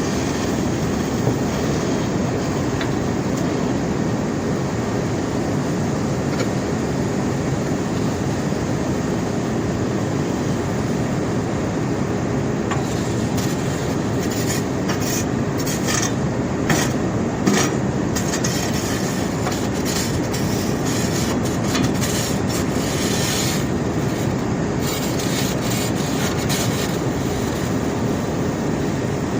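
Conveyor belt carrying rock: a steady rattling mechanical noise of the running belt, rollers and moving rock, with a few brief sharper clatters around the middle.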